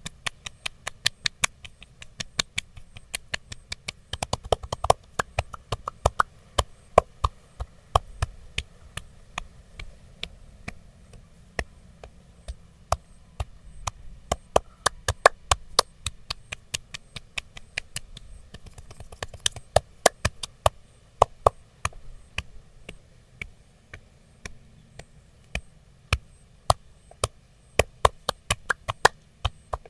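Percussive massage strikes on the body: sharp, dry taps coming a few a second in irregular runs, with short pauses between runs.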